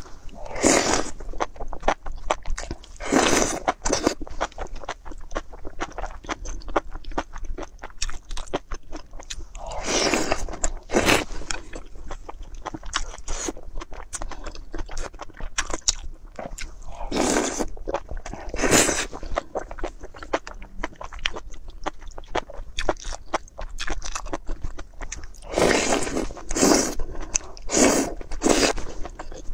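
Close-miked eating of enoki mushrooms and spicy broth from chopsticks: loud wet slurps about a second long come in groups every several seconds, with steady chewing clicks and smacks between them.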